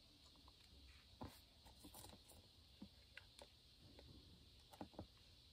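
Near silence broken by a few faint, irregular light clicks and taps: small plastic beads shaken from a plastic cup onto slime and pressed in by hand.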